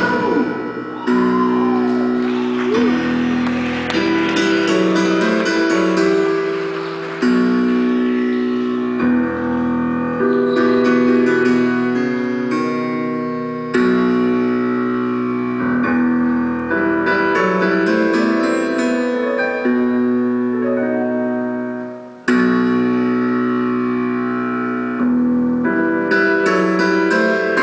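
Live band playing an instrumental passage led by sustained piano or keyboard chords, which move to a new chord every two to four seconds.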